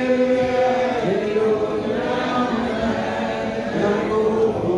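A group of people singing a slow worship song together in chant-like style, mostly unaccompanied, with long held notes.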